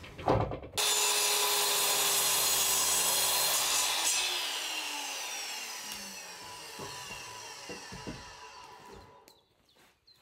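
Power saw cutting through wood for about three seconds, then the blade coasting to a stop with a falling whine.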